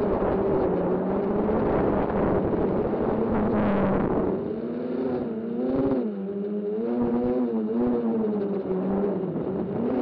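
Camera drone's motors and propellers whirring with a rushing hiss for about the first four seconds, then the whir's pitch rising and falling several times.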